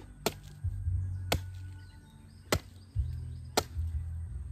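A blade chopping into a young coconut (buko): four sharp strikes about a second apart, over background music.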